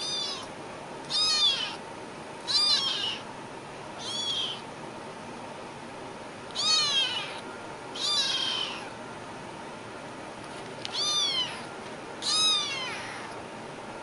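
Kitten meowing repeatedly: about eight short, high-pitched meows, each rising then falling in pitch, a second or two apart.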